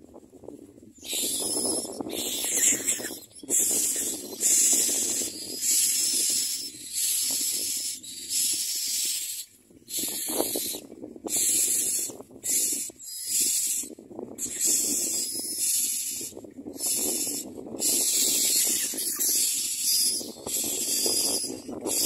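Common myna nestlings begging for food: harsh, hissing calls in repeated bursts of about a second each, starting about a second in.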